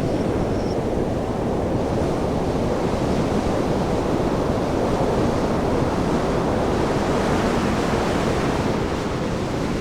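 A steady, dense, low rush of turbulent water and wind noise, part of an abstract soundscape.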